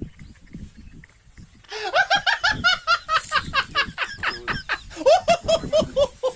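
A person laughing: a long run of quick, high-pitched laughs that begins just under two seconds in.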